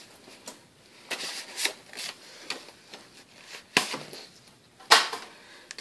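A new serpentine belt being taken from its cardboard box and handled: scattered clicks, taps and rustles, with two sharper knocks in the second half, the louder one near the end.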